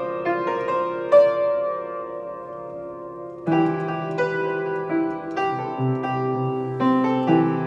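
Instrumental music on a piano-like keyboard: a melody of single struck notes that ring and fade, joined about three and a half seconds in by fuller chords with lower notes.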